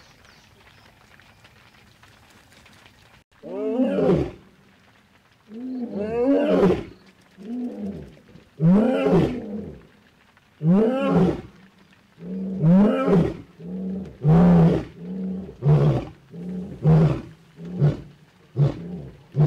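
Male lion roaring: a few low, drawn-out roars, then shorter grunting calls that come faster, about one a second, toward the end.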